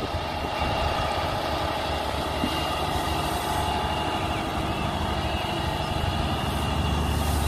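Heavy diesel semi-truck engine running steadily at low revs, a constant low drone with faint steady tones above it.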